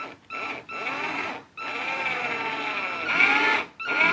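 Cordless drill driving screws into a fibreboard bookcase back panel. The motor whines in several stop-start bursts, with brief pauses about a third of a second in, near half a second, around a second and a half, and close to the end. Its pitch wavers as the screw bites.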